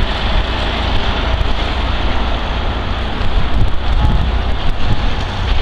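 Wind buffeting the microphone: a steady rushing noise with a heavy, uneven low rumble.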